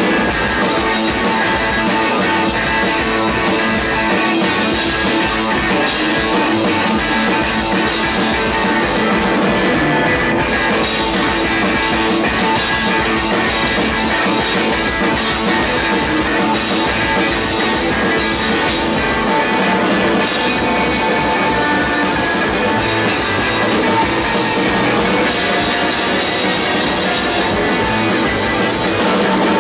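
Live rock band playing loud and steady: electric guitar, bass guitar and drum kit.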